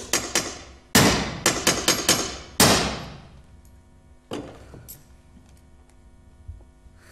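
A hand hammer striking a block: about ten quick, uneven blows in the first three seconds, then a single blow about four seconds in, each with a short ringing echo.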